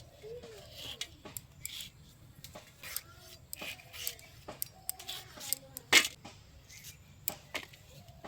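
Scattered clicks and clinks of kitchen utensils and dishes being handled during food preparation, the loudest knock about six seconds in.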